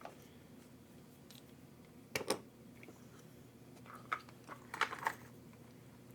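Scattered clicks and knocks of small tools and plastic RC-truck parts being handled. There is one sharp knock about two seconds in and a quick run of clicks about five seconds in.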